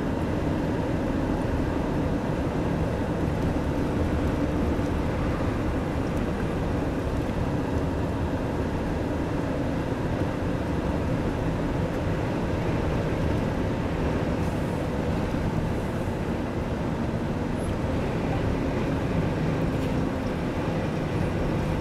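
Steady low rumble of a car's engine and tyres on the road, heard from inside the cabin while driving at an even speed.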